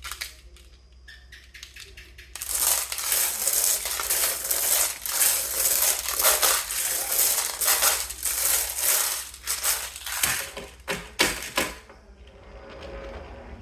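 Marbles rolling down a wooden marble run: a few separate clicks, then about two seconds in a dense, loud clatter of many marbles knocking along the track. After several seconds it thins to a few separate clicks and stops.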